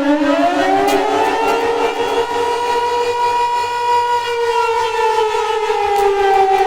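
Outdoor warning siren wailing: its pitch climbs over about a second and a half, holds, then slowly winds down.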